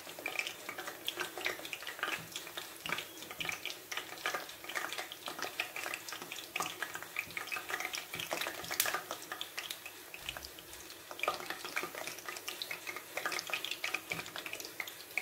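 A bhatura deep-frying in hot oil in a pan: a continuous crackling sizzle, with one sharp click about nine seconds in.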